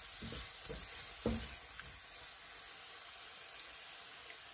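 Prawns in a spice paste sizzling in a non-stick frying pan, with a few soft knocks of a silicone spatula against the pan in the first second and a half as it is stirred.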